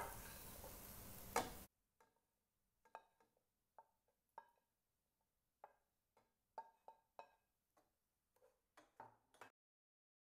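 Near silence, broken by the clink of a ceramic plate knocking on the rim of a pot as crumbled puttu is tipped in. After that come faint, scattered light taps and scrapes.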